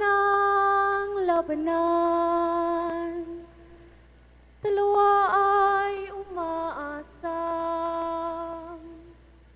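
A woman singing unaccompanied in M'ranaw chant style: two long phrases of held notes, each stepping down in pitch, with a quick ornamental dip early in the second, and a pause of about a second between them.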